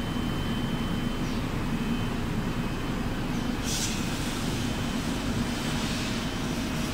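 Steady low machine drone of a wood-door spray-coating line, its centrifugal exhaust fan and conveyor running, with one short hiss about three and a half seconds in.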